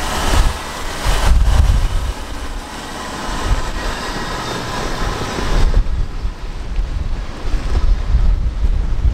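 Strong wind buffeting the microphone in gusty, uneven low rumbles, over a broad rushing hiss that thins out about six seconds in.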